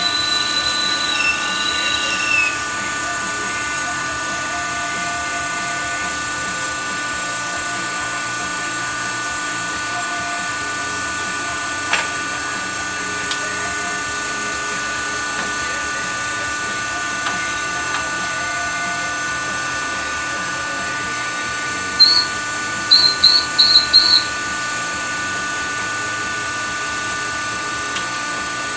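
WW2-era manual lathe running steadily with a whine of several fixed pitches while turning a cylinder head. A higher tone fades out about two seconds in, and about three-quarters of the way through a quick series of short, high squeals, the loudest sounds here, cuts through.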